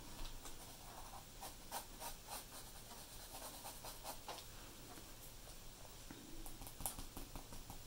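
Graphite pencil shading on drawing paper: faint, short scratching strokes repeated a few times a second, laid down with controlled pressure to build a smooth gradation.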